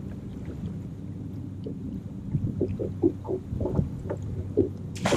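A hooked black bass splashing at the surface beside the boat as it is played in, over a steady low hum from the boat; a louder splash comes right at the end.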